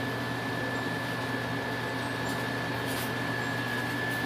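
Steady electrical hum with a constant high-pitched whine from the running Angel I plasma generator, with a brief faint crackle about three seconds in.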